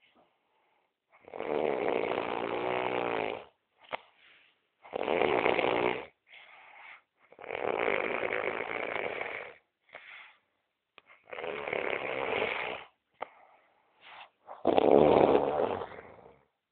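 A person snoring loudly in sleep: five long, loud snores about every three to four seconds, with quieter breaths between them. The last snore is the loudest.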